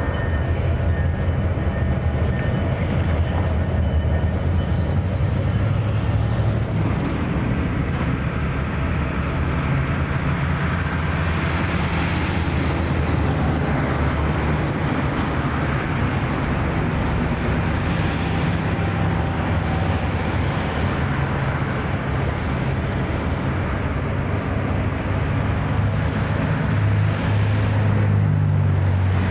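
Diesel-electric locomotive engines idling, a steady low rumble and hum that grows a little louder near the end.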